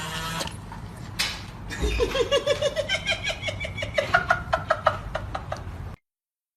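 A person laughing in a fast run of high-pitched ha-ha pulses, about five or six a second, rising in pitch, from about two seconds in until the sound cuts off abruptly near the end. A short burst of noise comes about a second in.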